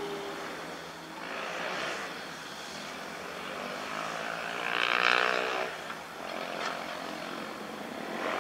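Komatsu mini excavator's diesel engine running steadily as the machine works, with a louder swell about five seconds in.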